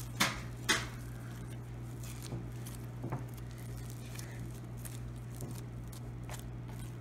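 Hands squeezing, folding and stretching sticky white slime studded with styrofoam beads. Soft squishing with a few sharp sticky clicks, the two loudest in the first second, over a steady low hum.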